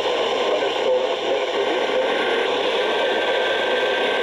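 Radio static: a steady hiss from a weather radio receiver picking up no clear signal on a NOAA Weather Radio frequency. A faint thin whistle comes in about halfway through.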